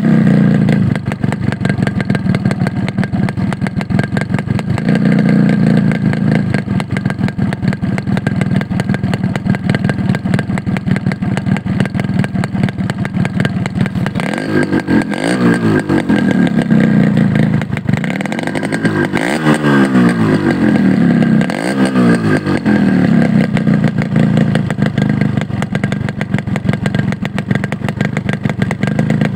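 Motorcycle engine heard close at the exhaust, idling steadily. It is revved up and back down three times around the middle, then settles back to idle.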